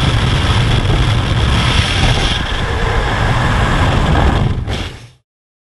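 Loud rushing wind and aircraft engine noise buffeting a skydiver's camera microphone at the open door of a jump plane, carrying on through the exit into freefall. It cuts off suddenly near the end.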